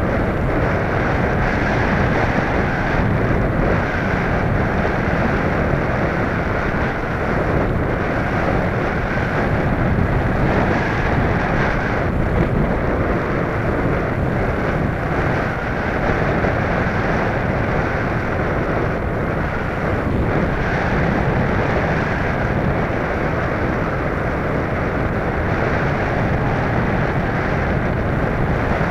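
Steady rush of airflow buffeting the onboard camera's microphone on an Easy Glider Pro RC glider in flight.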